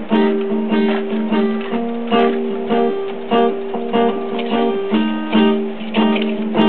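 Background music of plucked acoustic guitar, picked notes in a steady rhythm.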